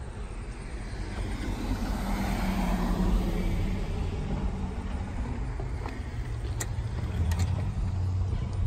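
A car passing on the street, its tyre and engine noise rising and fading about two to three seconds in, over a steady low outdoor rumble. A few sharp clicks follow near the end.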